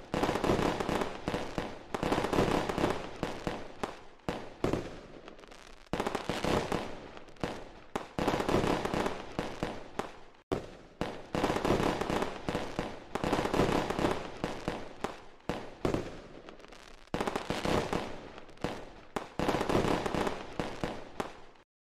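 Fireworks bursting one after another, about every two seconds, each burst fading away before the next.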